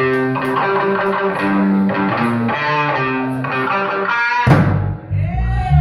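Live instrumental rock band: an electric guitar plays a melodic line of held notes over low bass notes, then about four and a half seconds in a sharp hit brings the full band in louder and heavier, with bass and drums.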